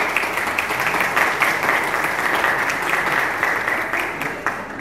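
Audience applauding, a dense patter of many hands that dies away near the end.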